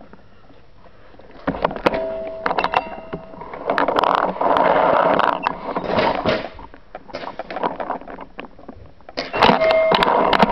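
A paintball player on the move with a marker: rushing, rustling movement noise and knocks of gear against the body, with quick clicks and pops. Near the end comes a burst of rapid clicks over a steady hum.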